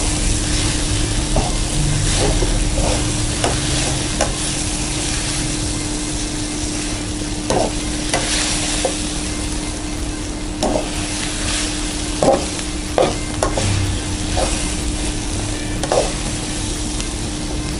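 Egg noodles with beef and vegetables sizzling in a hot wok while being stir-fried and tossed with metal tongs. Irregular clicks and scrapes of the tongs against the pan come through over a steady sizzle, with a low steady hum underneath.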